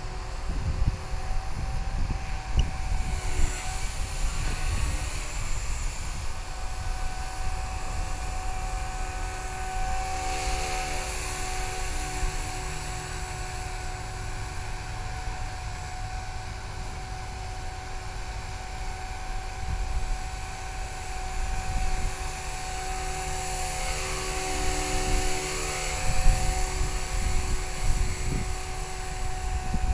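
Blade 180 CFX electric RC helicopter flying: a steady high motor-and-rotor whine that rises and falls with throttle, about ten seconds in and again near the end. Gusty low rumble of wind on the microphone runs under it.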